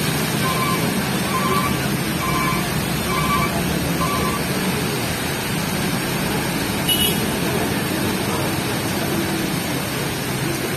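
Heavy rain making a loud, steady rush. A short electronic beep repeats about one and a half times a second through the first four seconds, and there is a single click about seven seconds in.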